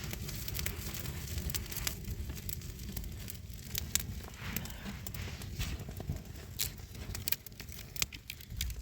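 Low rumble of wind, with scattered sharp crackles and clicks throughout.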